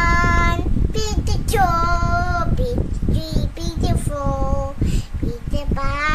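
A young girl singing a few long held notes, some sliding up in pitch, the last rising near the end.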